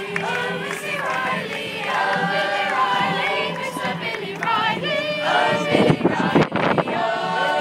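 Youth folk dance troupe singing together in unison as they march, a choir of mostly young female voices. A brief burst of noise stands out about six seconds in.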